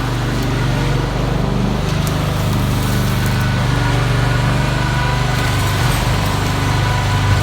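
Small gas engine of a motorized concrete buggy running steadily as it hauls concrete.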